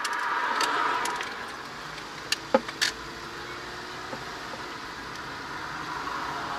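Engine and road noise inside the cabin of a Lakunn kei camper driving along a road. A few sharp clicks and a short falling squeak come about two and a half seconds in.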